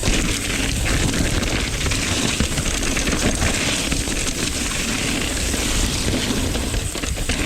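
Mountain bike riding along a dirt trail: a steady rumble and rattle of tyres and bike over the ground, with wind buffeting the microphone.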